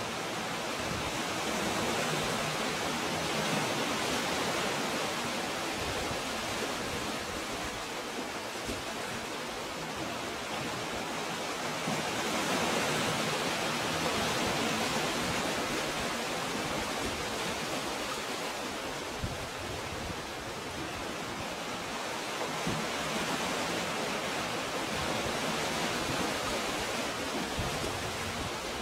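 Sea water surging up a narrow rocky inlet and washing over stones: a steady rushing that swells and eases about every ten seconds.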